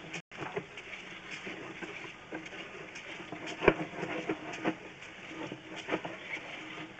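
Sewer inspection camera push cable being fed down the line: irregular light clicks and knocks, with one louder knock about three and a half seconds in, over a faint steady hum.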